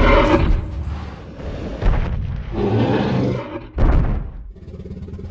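Dinosaur roar sound effect for a Tyrannosaurus rex: about four loud, deep, rumbling roars in quick succession.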